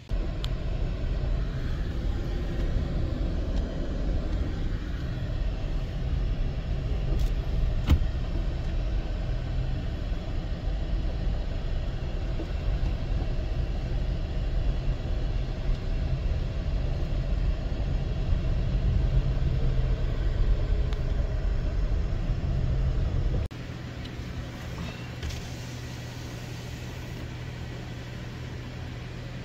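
2017 Toyota Tacoma TRD Off-Road pickup driving on a gravel road, heard from inside the cab: a steady low rumble of engine and tyres on gravel. It cuts off abruptly a few seconds before the end, leaving a quieter steady low hum.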